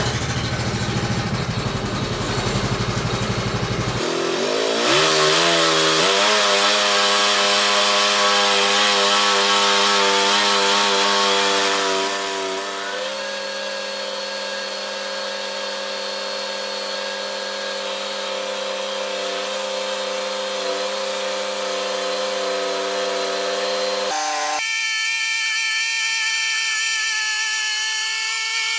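Sawmill running while milling a spalted beech log. Its motor note climbs to speed about four to six seconds in, then holds steady with a slight drop in pitch about twelve seconds in. Near the end the low rumble falls away, leaving a high whine.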